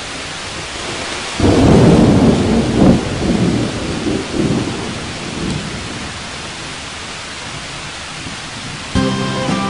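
Steady heavy rain with a thunderclap about a second and a half in that rumbles and rolls away over several seconds. Music starts near the end.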